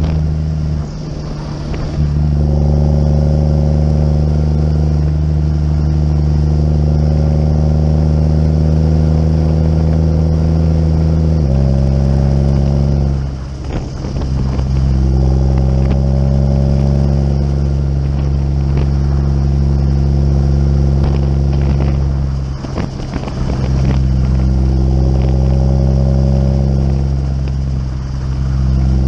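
Tractor diesel engine running steadily on the road while muck carting. The engine note dips briefly four times, then picks back up each time.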